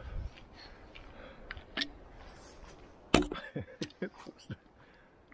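Plastic mineral-water bottle being unscrewed and handled: a string of sharp clicks and crackles, the loudest about three seconds in.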